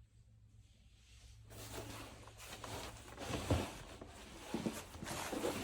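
Rustling and scraping handling noises, starting about a second and a half in, with louder scrapes about halfway through and near the end.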